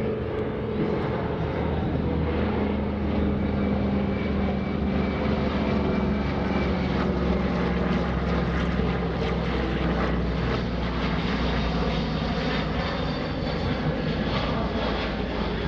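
Steady engine drone from a formation flyby of a C-17 Globemaster III, with its four turbofan engines, and a C-47 Skytrain, with its twin radial piston engines turning propellers.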